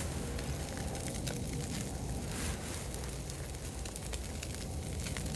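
Iberico pork rib fingers sizzling on a wire grill over glowing charcoal, with scattered small crackles and pops from the fat and coals.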